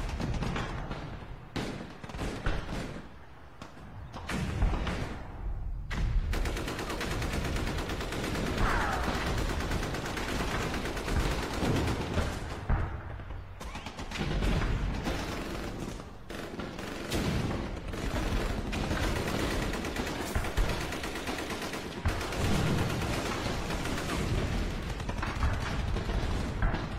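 Sustained gunfire: irregular volleys of rapid shots, including machine-gun bursts, with a brief falling whistle about nine seconds in.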